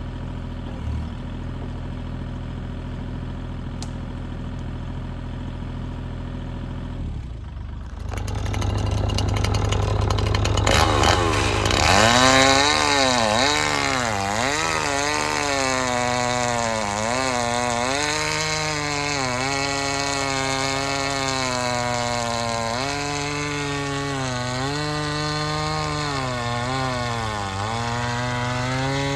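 Mini excavator engine idling steadily, then a Stihl chainsaw comes in about 8 seconds in, revs up, and from about 12 seconds in cuts through a pine log, its pitch dipping and recovering again and again as the chain bogs in the wood.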